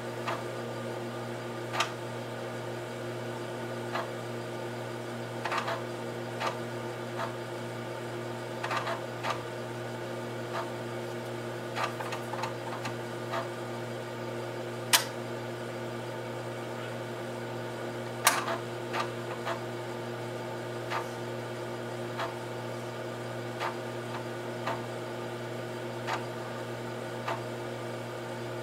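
Heathkit H-47 8-inch floppy disk drive working while the operating system is written to the disk during a sysgen: a steady hum with irregular clicks and ticks of the head seeking, and two louder clacks about halfway through.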